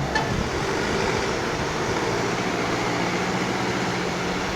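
Diesel engine of a JCB earthmoving machine running steadily at a constant speed.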